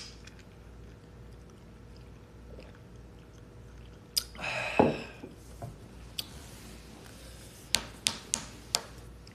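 Drinking an iced drink through a straw: a sharp clink of the glass at the start, then quiet sipping and swallowing, a short breathy 'ah' about five seconds in, and a few sharp clicks near the end.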